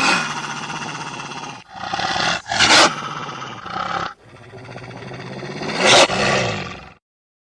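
Wolf growling, rough and continuous, with two loud outbursts about two and a half and six seconds in. It stops abruptly about a second before the end.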